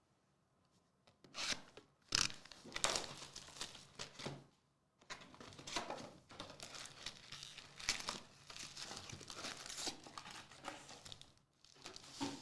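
Plastic wrapping crinkling and tearing in bursts as a sealed box of trading cards is cut open and unwrapped, with a short pause about halfway.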